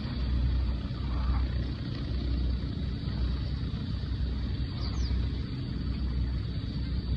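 Engines of the Snoopy J manned airship running steadily: a continuous low drone.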